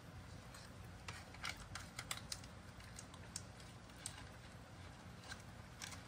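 Cat chewing small Churu Bits treats picked up off the rug: faint, irregular crisp crunching clicks, a cluster of them about one to two and a half seconds in, then single ones spaced out, over a low steady room hum.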